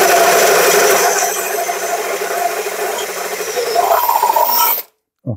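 Cordless drill boring a small hole through a metal part clamped in a vise, the motor running steadily under load, then cutting off suddenly near the end.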